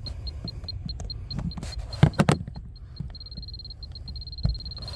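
Moisture meter beeping, about five high beeps a second, going over to a continuous tone about three seconds in as it registers a high reading in wet sheetrock. A few knocks around two seconds in, and another thump near the end.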